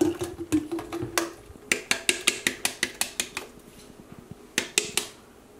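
Blender cup knocked repeatedly against the rim of an aluminium pot to shake out thick blended hibiscus flowers: a quick run of sharp taps, about six a second, then two more near the end.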